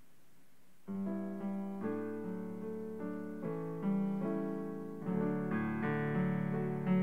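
Piano playing a slow introduction of gentle chords to a sung prayer response, starting about a second in; lower bass notes join about five seconds in.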